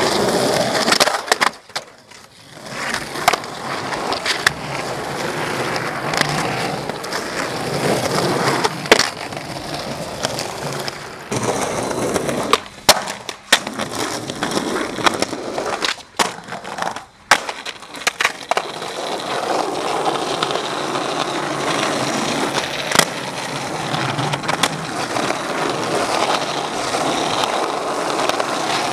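Skateboard wheels rolling on pavement, broken several times by sharp clacks of the board popping and landing, and cutting out abruptly a few times.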